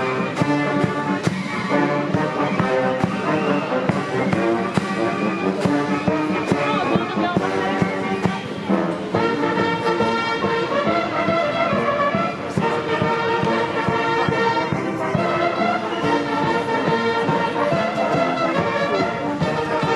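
Military band playing a tune, led by brass, over a steady drum beat.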